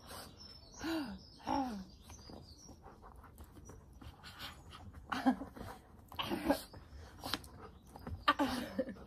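Alaskan Malamute's play vocalisations during rough tug play with a mitten: short breathy grumbles and huffs, two close together about a second in and three more in the second half.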